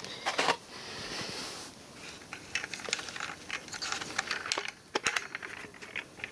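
Hands handling plastic and cardboard packaging and computer parts: scattered light clicks and taps, with a brief rustle about a second in.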